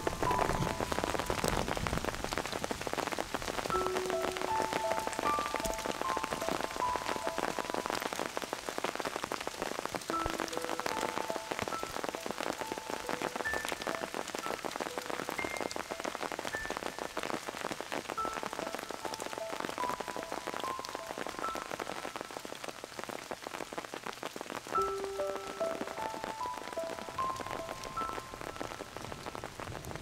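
Steady rain falling, a dense patter of many close drop hits, under soft background music of slow single notes.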